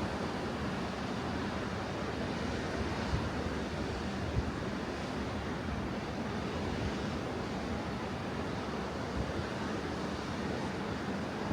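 Atlantic Ocean surf washing onto a beach, a steady continuous roar of breaking waves.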